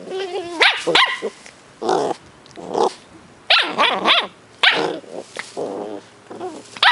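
Two ten-week-old Cardigan Welsh Corgi puppies play-fighting, giving a string of short high yaps, little barks and growls.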